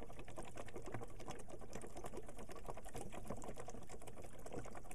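CO2 gas from a tank regulator bubbling steadily through a small water bottle, a fast, even stream of small bubbles. The bubble rate shows how much CO2 is flowing to anesthetize the flies.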